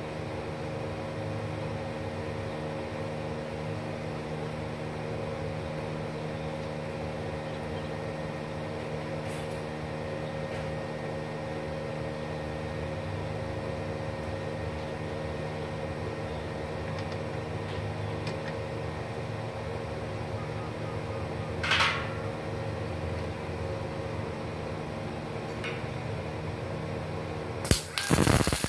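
Steady machine hum as the MIG welder stands switched on, with a short hiss about three quarters of the way through. Near the end the arc strikes and the 0.8 mm solid-wire, CO2-shielded MIG weld on steel starts crackling.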